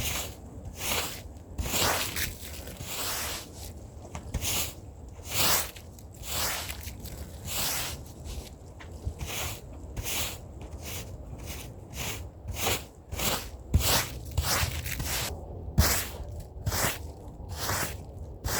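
Stiff hand brush scrubbing a rug's pile, a run of short rasping strokes, about one or two a second at an uneven pace.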